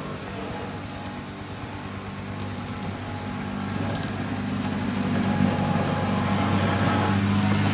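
Motor of woodworking power tools running steadily with a low hum, growing louder about halfway through.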